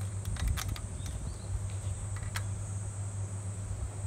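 Insects buzzing in a steady, high-pitched drone, over a steady low hum, with a few faint clicks.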